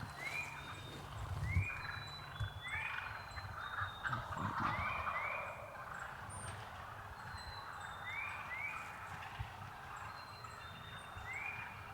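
Frogs calling in a chorus: short rising peeps repeat every half second to a second, often two close together.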